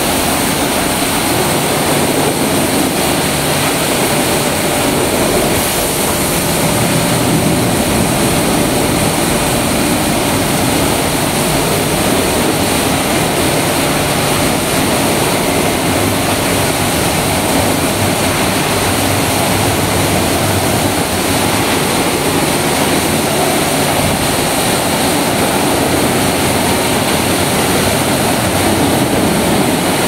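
SRK Smart Wash automatic rollover car wash running, its rotating brushes scrubbing a car's body amid water spray and the gantry's machinery, a loud, steady rushing noise.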